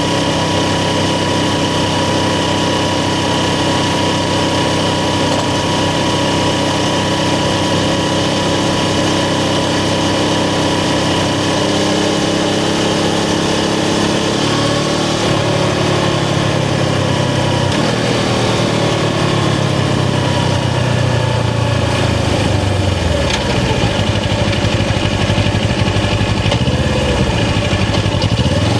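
Suzuki GS500's air-cooled parallel-twin engine running. The engine note holds steady for about the first twelve seconds, then drops, and in the second half it falls and climbs again several times as the revs change.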